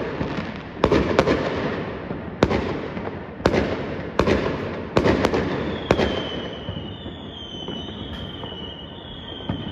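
Fireworks bursting: a run of sharp bangs, about eight in the first six seconds, each trailing off in a rumbling echo. After that the bangs thin out and a high, wavering whistle rises and falls over and over.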